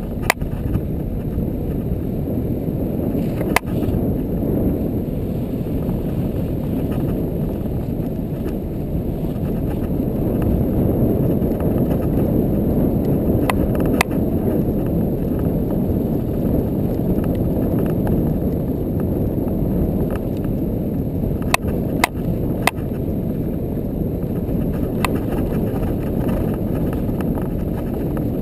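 ATV being ridden over a snow-covered track: a steady low rumble of engine and wind on a camera mounted on the machine, with a few sharp clicks or knocks scattered through.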